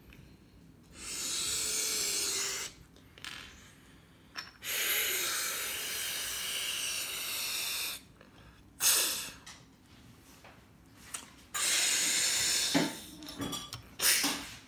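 Three long bursts of hissing, like escaping air or steam, each starting and stopping abruptly. Between and after them come a few sharp plastic clicks as Lego Hero Factory pieces are snapped onto the figure's head.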